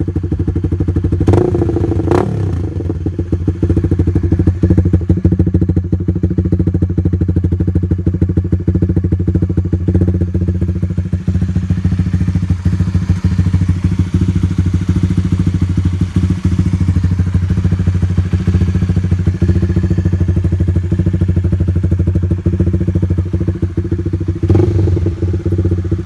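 Honda RS150 motorcycle engine idling steadily through an NLK open-pipe exhaust with its silencer fitted, a fast even exhaust beat. Short louder bursts come about a second and two seconds in, and again near the end.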